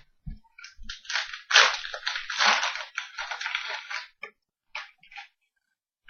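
Crinkling and rustling of plastic card packaging being handled, a dense crackle lasting about three seconds, with a few short clicks of card handling before and after it.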